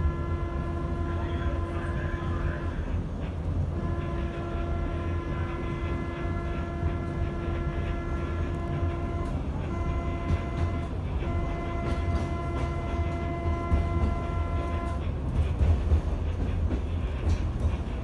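Train horn sounding a chord in the grade-crossing pattern, two long blasts, a short one and a long one, over the low rumble of the rail car running.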